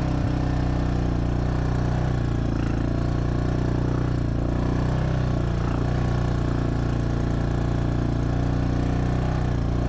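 Honda ATV engine running steadily as the quad drives along a rough dirt trail.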